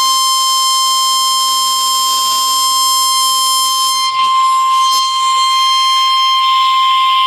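NOAA Weather Radio warning alarm tone: a loud, steady single tone of about 1050 Hz held without a break. It is the alert that signals an urgent warning message, here a tornado warning.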